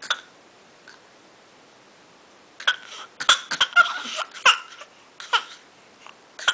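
A small child's pretend coughs: short, high-pitched bursts of voice, one at the start, a quick run of them through the middle, then single ones toward the end.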